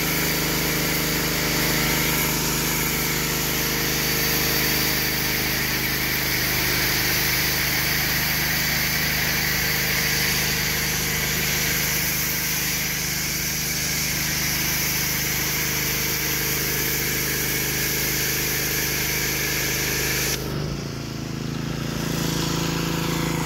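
Small-engine pressure washer running steadily while a foam cannon sprays with a continuous hiss. About twenty seconds in the spray stops for a moment and the engine note shifts, then the spray resumes.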